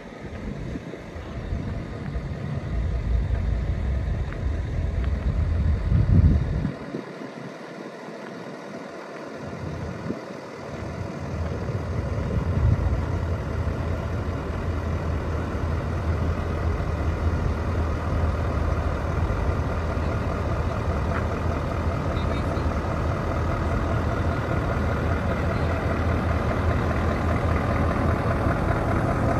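Heavy truck engines running: a loud low rumble that peaks about six seconds in and briefly falls away, then a steady engine note that slowly grows louder.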